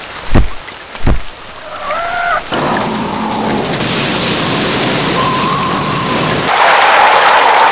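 Storm sound effects: two loud thunder claps within the first second or so, then a steady rush of rain and wind that grows louder about six and a half seconds in. A short rising, wavering tone sounds about two seconds in.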